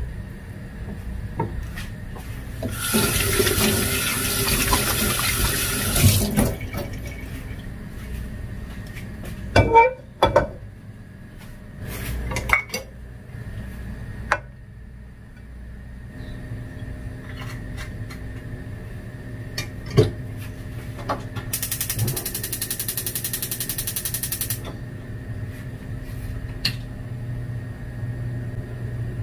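Tap water running for about three seconds, then a few sharp knocks of kitchen things set down on the counter, and later a gas stove's igniter ticking rapidly for about three seconds before the burner lights.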